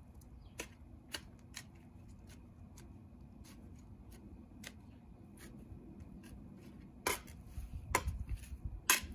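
Hands working potting soil and garden materials: scattered light clicks and scrapes over a faint low hum, with three louder knocks about seven, eight and nine seconds in.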